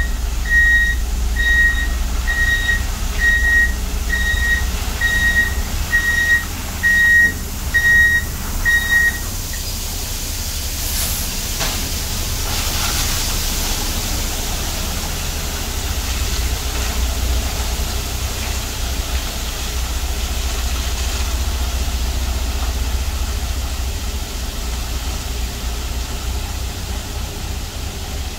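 Water sprinkler tanker truck's reversing alarm beeping steadily about three times every two seconds as it backs up, stopping about nine seconds in. A short hiss follows a couple of seconds later, and the truck's engine keeps running with water spraying onto wet gravel.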